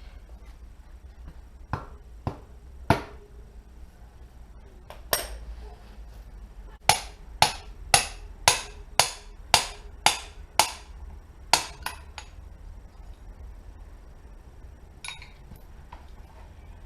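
Hammer striking metal during front-wheel and bearing work on a motorcycle: a few separate blows, then a run of about eight evenly spaced blows at roughly two a second, each ringing briefly.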